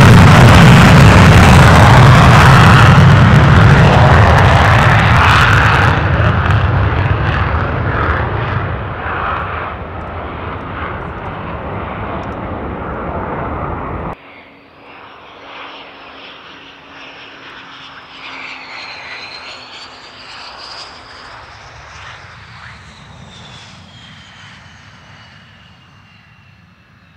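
USAF fighter jet taking off in afterburner, a loud, dense roar that fades steadily as it moves away. After a sudden cut about 14 seconds in, jet engines run at lower power, much quieter, with a high turbine whine that slides up and down in pitch.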